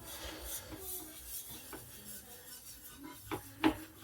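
Carbon steel Chinese cleaver rubbing quietly on a natural sharpening stone, with two sharp clicks of metal on stone near the end.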